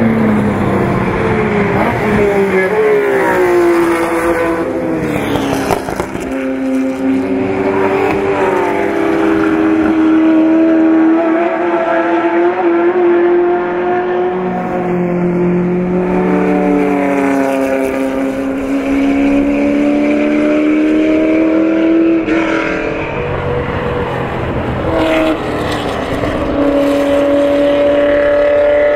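Ford GT40's V8 racing engine at high revs on track. The engine note climbs in pitch, drops back at gear changes and climbs again, several times over.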